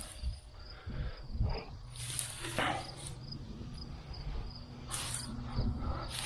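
Hay and grass-clipping mulch rustling in several short bursts as it is pulled away by hand. A faint, evenly pulsing high chirp from an insect runs underneath.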